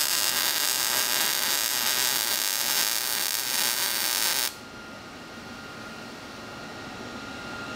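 Wire-feed (MIG) welder arc crackling steadily on steel tubing, an even frying-bacon sizzle that marks well-set welding parameters. It cuts off suddenly about four and a half seconds in, leaving a quieter steady background hum.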